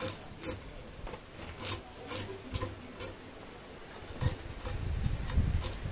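Koi fish (climbing perch) being scaled against the blade of a boti: short rasping scrape strokes, roughly two a second, with low handling noise building near the end.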